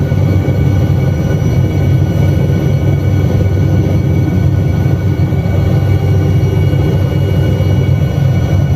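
Bell 47 piston helicopter running steadily: a constant loud low drone from engine and rotor, with several steady higher whining tones over it.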